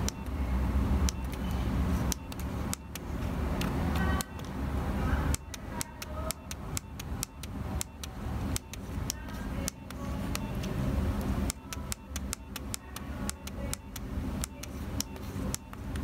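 Plastic navigation keys of a Nokia 3300b phone clicking as they are pressed, a few at first and then in quick runs from about five seconds in, over a steady low rumble.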